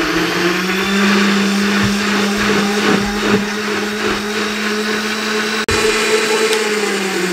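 Electric juicer-blender running steadily, grinding boiled carrots and water into a smooth pulp, with a motor hum under the churning of the contents. The sound breaks off for an instant a little past the middle.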